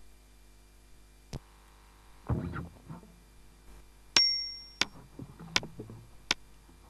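A pause in the music: a handful of faint, sharp clicks and knocks, a brief rustle, and a short metallic ding a little past halfway that rings on for about half a second.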